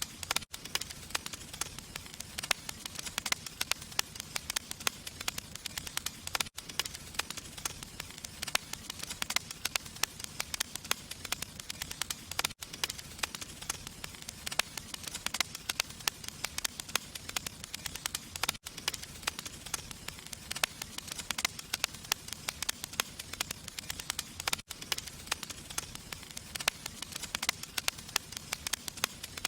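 Fire crackling with dense, steady small pops, broken by a brief dropout about every six seconds.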